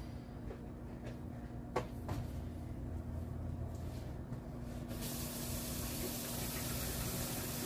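Cold water starts running with a sudden, steady hiss about five seconds in, for shocking freshly steamed eggs. Under it is a steady low hum, with a faint click near two seconds.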